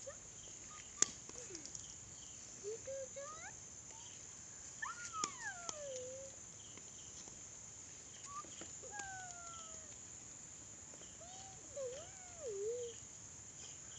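Kittens meowing now and then, short gliding meows scattered through, the longest about five seconds in, falling in pitch over about a second.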